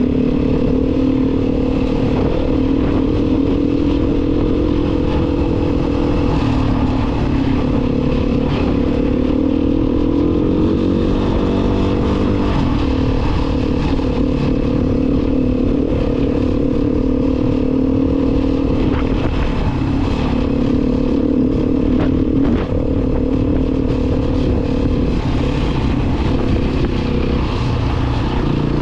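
An engine running steadily at constant speed, its pitch shifting a little about halfway through.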